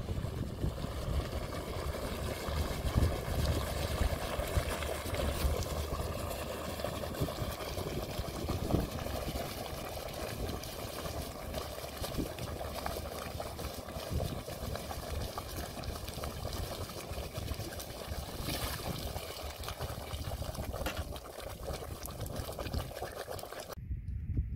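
Quicklime slaking in a plastic tub of water: the mix boiling and sputtering with a dense, steady crackle of bubbling, a sign the lime is still reacting and not yet ready to spread on the pond. It cuts off suddenly near the end.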